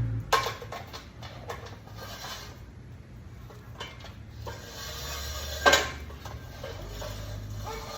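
Scattered light clicks and knocks of objects being handled, with one sharp, loud knock about six seconds in, over a steady low hum.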